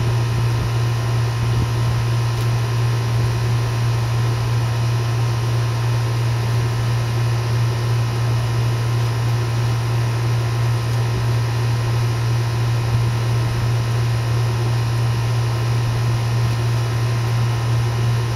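A steady, unchanging low machine hum with an even hiss over it.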